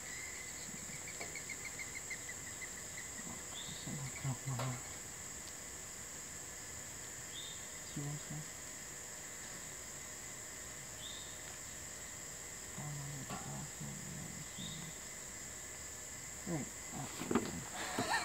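Steady high-pitched drone of insects calling outdoors. A short rising chirp repeats about every three and a half seconds, and there is some rustling and knocking near the end.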